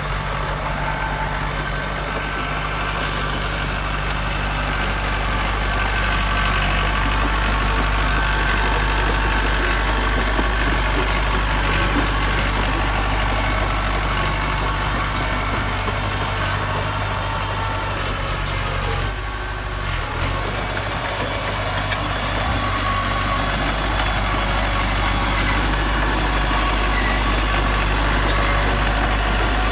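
Diesel engine of heavy earthmoving equipment running steadily, with a low, even hum. The level drops briefly about two-thirds of the way through.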